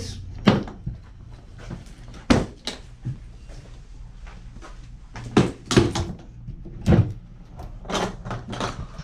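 Latches of a large hard plastic equipment case snapping open and the lid being lifted: a series of sharp clicks and knocks spread over several seconds.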